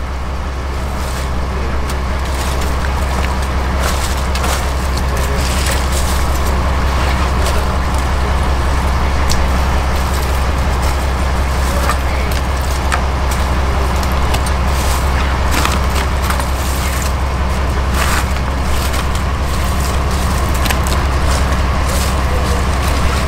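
A boat engine running steadily with a constant low drone, with scattered clicks and rattles of fish and crushed ice being handled.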